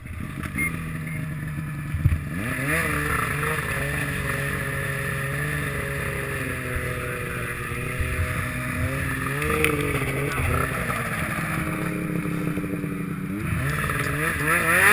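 Ski-Doo MX Z 800 snowmobile's two-stroke engine pulling away about two seconds in, then running under steady throttle with brief dips in pitch, and revving up hard near the end as it accelerates.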